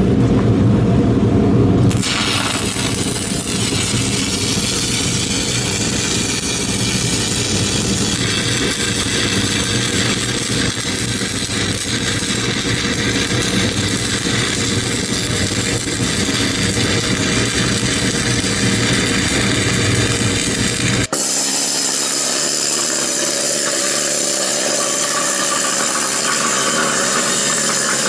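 Stick welding with a 7024 heavy-coating drag rod: the arc crackles and fries steadily as the rod is dragged along a thick beveled steel joint on a backing strap. It opens with a low hum for about two seconds before the crackle sets in, and about 21 seconds in the deep part of the sound drops away abruptly.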